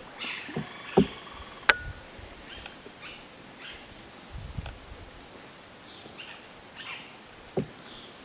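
Tropical forest ambience: a steady high-pitched insect drone with scattered bird chirps, broken by a few sharp knocks, about one and two seconds in and again near the end.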